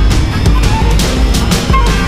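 Loud background music with a steady driving beat, heavy rock or metal in style.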